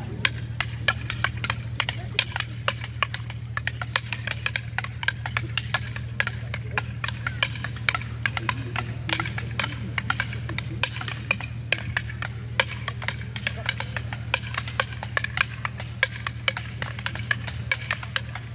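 Kali fighting sticks clacking together in rapid, irregular strikes, several a second, over a steady low hum.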